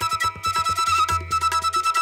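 Instrumental background music: a held, high melody line over a quick, steady beat.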